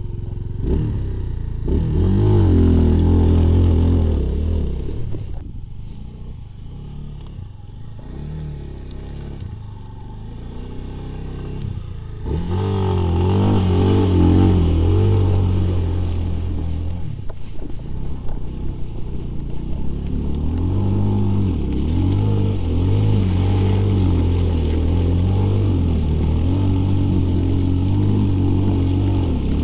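Minsk X 250 motorcycle engine revving hard under load as the bike is pushed through deep grass and mud, its rear wheel spinning. The engine eases off and runs quieter for several seconds, then revs up loudly again about twelve seconds in and keeps rising and falling with the throttle.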